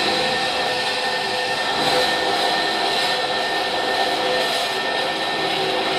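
Jet 7x12 horizontal metal-cutting bandsaw running steadily, its blade cutting through steel square tube, a continuous mechanical noise with a steady high whine.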